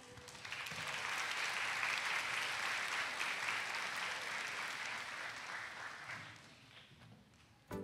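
Audience applauding, building up about half a second in and dying away toward the end.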